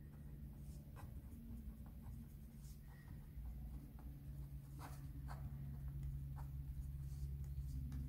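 Felt-tip marker drawing on paper: faint scratching strokes and small clicks of the pen tip, over a low steady hum.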